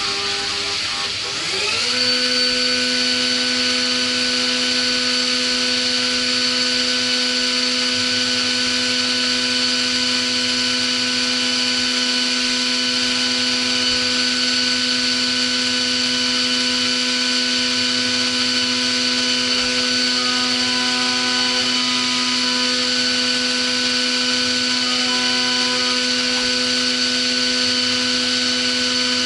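Haas VF-4 CNC vertical mill's spindle rising in pitch about two seconds in, then running with a steady high whine while milling a part on the rotary 4th axis, over a constant hiss of flood coolant spray.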